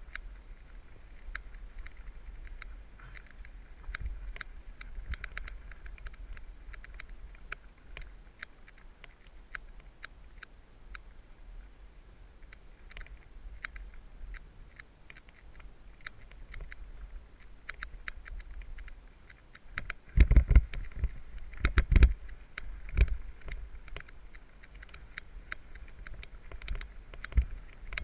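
Mountain bike rattling and clicking steadily as it rides over a rough dirt trail, with a cluster of heavier low thumps about twenty seconds in.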